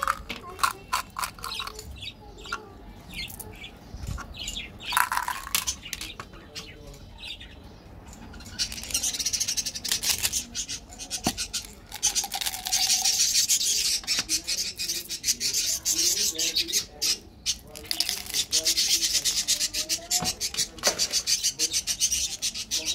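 Candy packaging being handled: plastic caps clicking and small candies rattling, then, from about a third of the way in, long stretches of crackling from a foil wrapper being crumpled and torn open.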